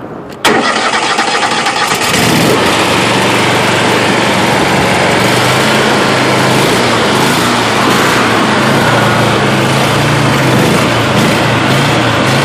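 Pressure washer engine starting: a sudden loud start about half a second in, then the engine settles into steady running from about two seconds on.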